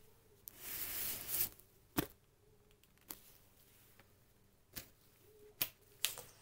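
Gloved hands on a cardboard box: a brushing, rubbing sound across the cardboard about a second in, then a few separate sharp taps and clicks as plastic knife sheaths are set down on the box.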